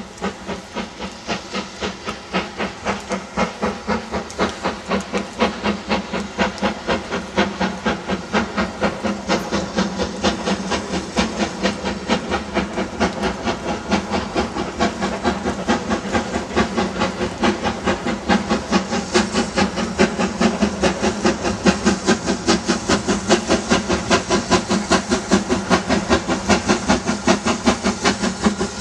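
BR Caprotti Standard Five 4-6-0 steam locomotive 73129 working a train, its exhaust beating evenly over a steady steam hiss. The beats come about two to three a second, quickening slightly and growing louder as it approaches.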